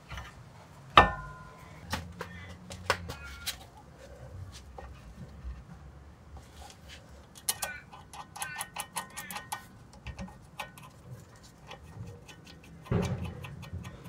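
Metal clinks and clicks from a car's front brake caliper being fitted over new brake pads: a sharp clank with a short ring about a second in, a quick run of light metallic clicks and rattles in the middle, and a dull knock near the end.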